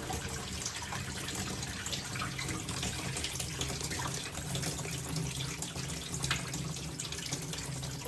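Water running and splashing in an electric foot spa tub, over a steady low hum.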